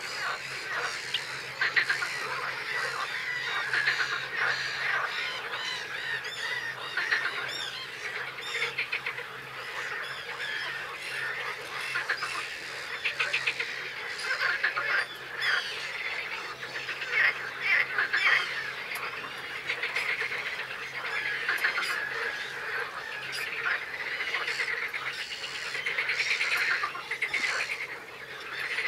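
Many birds calling at once: a continuous din of overlapping calls with no pause.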